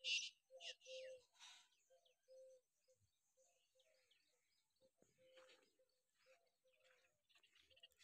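Faint birds chirping, with short high calls and quick falling notes, loudest in the first second or so, against near silence.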